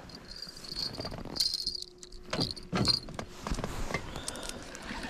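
A few scattered sharp clicks and knocks with light jangling, about four over a few seconds.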